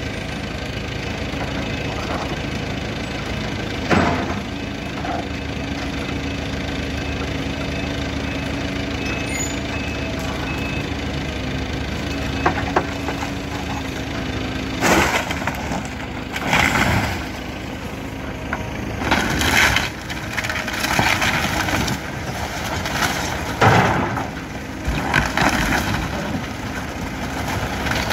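Link-Belt 160 excavator's diesel engine running steadily, with a single knock about four seconds in. From about fifteen seconds on, its bucket crunches and breaks up the wrecked building's debris in a series of irregular crashes.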